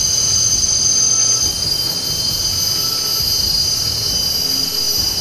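Forest insect chorus: a steady, high-pitched drone of several held tones that does not change.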